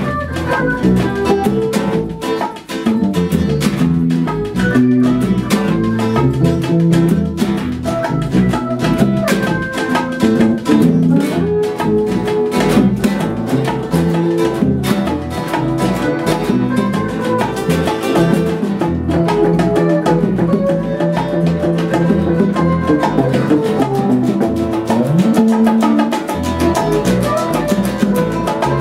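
Instrumental Cuban-style band improvisation: acoustic guitar, electric guitar and electric bass over a steady hand-drum rhythm.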